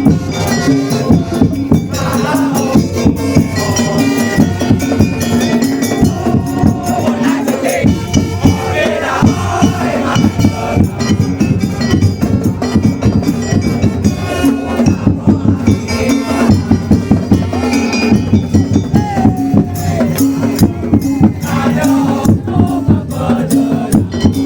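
Madurese daul ensemble playing: drums and rattling percussion keep a steady, driving beat, with a wavering melody line on top.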